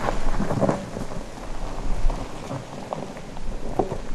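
BMW X3's tyres rolling over a loose dirt and gravel track, stones crunching and crackling under the wheels in irregular pops, over a steady low rumble.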